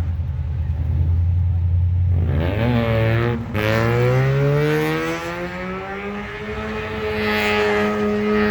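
Car engine accelerating hard: it holds low, then its revs climb, fall sharply at a gear change about three and a half seconds in, and climb again before levelling off.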